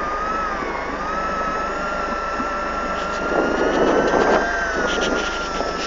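A motor running steadily with a high, slightly wavering whine, with a louder rushing noise for a second or two in the middle.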